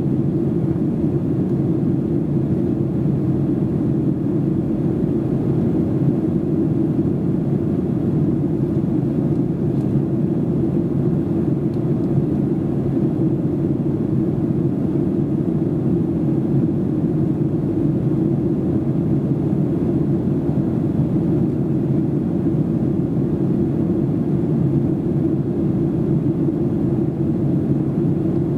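Steady low cabin rumble of a Boeing 737-800 in flight, the CFM56-7B turbofan engines and the rush of air on the fuselage heard from a seat near the back of the cabin.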